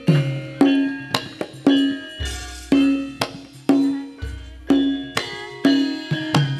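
Javanese gamelan dance accompaniment led by kendang hand drums: a fast run of pitched drum strokes and sharp clacking strikes, with a deep booming stroke about every two seconds.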